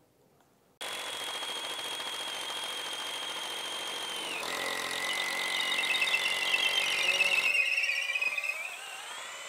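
Electric drill boring through a timber roof beam, starting about a second in with a high whine. About four seconds in the pitch drops and the sound grows louder and rougher as the bit bites and the motor labours under load, then it eases and rises again near the end. The drill is underpowered for the job and straining, at risk of burning out.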